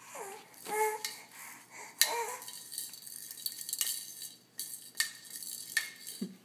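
An infant gives a few short coos and squeaks in the first couple of seconds. Then come several sharp clicks and clinks as the baby grabs and mouths a hanging toy of plastic rings and teethers.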